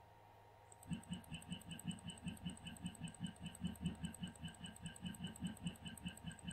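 MillRight Carve King 2 CNC router's Z-axis stepper motor jogging the head down in repeated 1 mm steps: an even train of short pulses, about five a second, starting about a second in.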